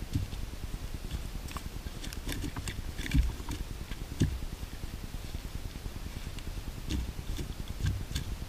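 A landed fish dropped onto a grassy bank, making a few soft thumps and rustles as it lands and flops, the loudest about three and four seconds in, over a steady low rumble.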